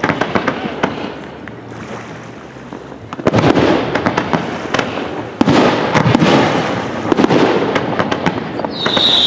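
Aerial fireworks going off: bursts with dense crackling and hissing, and heavier reports about three seconds in and again past five seconds. Near the end a firework whistle starts, high and slowly falling in pitch.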